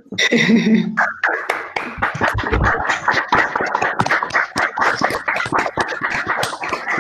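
Several people clapping into their own microphones on a video call, a dense, uneven patter of claps starting about a second in.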